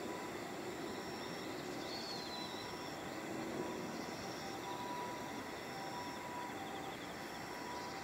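Crickets chirring in overlapping high, pulsing trills over a steady outdoor hiss. A short falling high note sounds about two seconds in.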